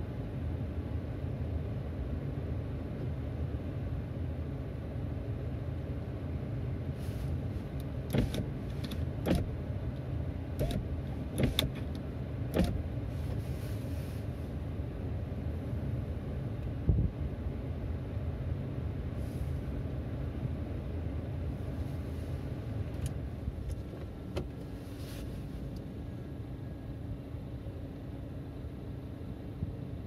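Steady low rumble of passing vehicles at a railway level crossing, with a run of sharp clicks and knocks about eight to thirteen seconds in and one more a few seconds later.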